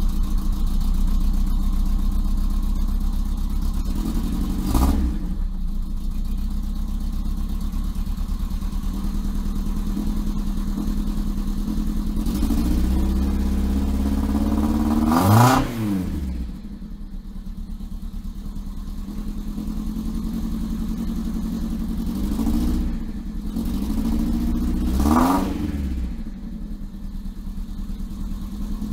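Honda Civic's four-cylinder engine heard at the tailpipe, idling steadily and revved several times: a quick blip about five seconds in, a longer rev that climbs and then drops sharply back to idle about halfway through, and two more revs later on.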